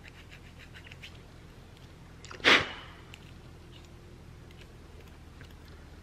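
Hands scraping leftover adhesive bits off the metal trim ring of a car start button: faint scratching throughout, with one sudden louder scrape about two and a half seconds in.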